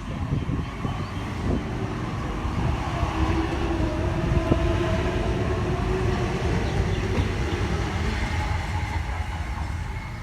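H-set OSCAR electric multiple unit moving along the platform: steady traction-motor whine over the rumble of wheels on rail, a little louder in the middle. Wind buffets the microphone.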